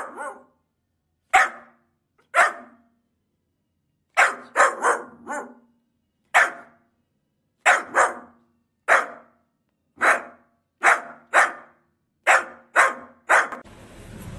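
A young grey-and-white dog barking over and over, with about seventeen sharp single barks. Some come spaced a second or so apart and others come in quick runs of two or three.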